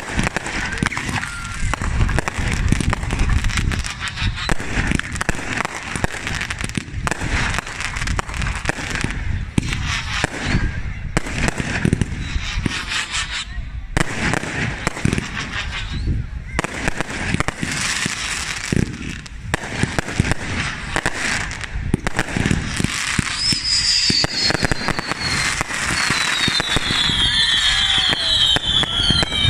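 Fireworks display: a continuous run of bangs and crackling bursts. Near the end, several high whistles falling in pitch join in.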